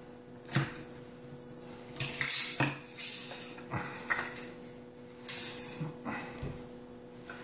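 Metal clinks, knocks and scraping as the wooden fore-end of a Marlin 1895 lever-action rifle is slid off the barrel and the magazine tube and spring come out, in a string of separate clicks with two longer scrapes.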